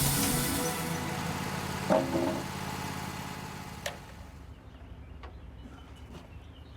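Wood-Mizer portable sawmill's engine running steadily, then dying away over about four seconds. There is a metallic clunk about two seconds in and a sharp click near four seconds, then faint birdsong.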